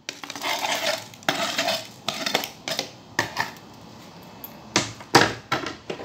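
A white cutting board being handled: scraping and rubbing for the first couple of seconds, then a series of knocks and clatters, the two loudest a little before the end.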